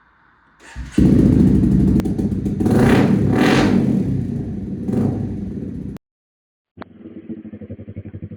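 Honda CBR250 with a Leo Vince aftermarket exhaust starting up suddenly about a second in and being revved loudly several times, cutting off abruptly; after a brief silence an engine idles with a quick, even pulse.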